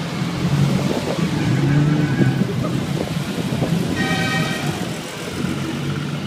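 Ferrari sports car engines running as the cars pull slowly past, a low engine note that swells and eases. A brief horn toot sounds about four seconds in.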